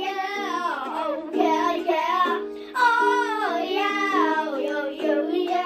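A young girl singing in long, sliding phrases over a small pink ukulele strumming steady chords.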